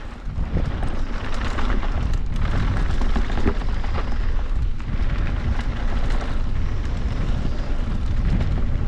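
Wind buffeting the microphone of a bike-mounted action camera, over the rumble and rattle of a mountain bike's tyres and frame running fast over a rough dirt trail.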